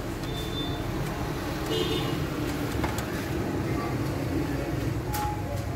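Steady low rumble of vehicle noise, with a couple of faint clicks near the end.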